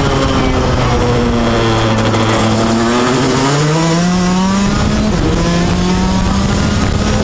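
Rotax 125 cc DD2 single-cylinder two-stroke shifter kart engine, heard from on board. Its pitch falls as the kart slows, then climbs as it accelerates, drops suddenly about five seconds in and climbs again.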